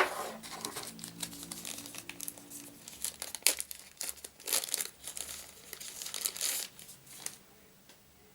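Packaging crinkling and rustling as it is handled and pulled open, with a run of small crackles and clicks that dies away about seven seconds in.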